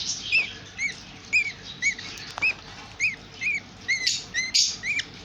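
Baby budgerigar chicks giving repeated short begging chirps, each rising and falling, about two to three a second, the food-begging calls of chicks being hand-fed. Two brief scratchy noises about four seconds in.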